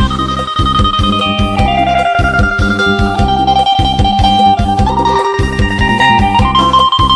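Music: a guitar-led instrumental melody over heavy bass and a steady beat.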